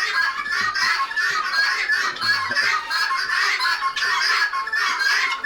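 A flock of chickens clucking together, a steady overlapping chatter of many birds.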